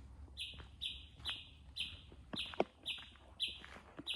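A bird calling over and over: a short, harsh, buzzy note about twice a second, very even. Footstep-like crunches come in about two and a half seconds in.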